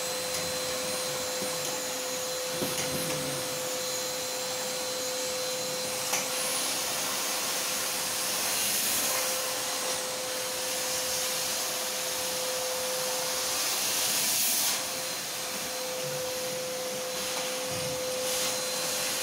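Vacuum cleaner running with a steady motor hum, its hose nozzle worked along window grilles and frames. The suction noise rises for a few seconds past the middle and again later, then drops back suddenly about fifteen seconds in, and there are a couple of light knocks early on.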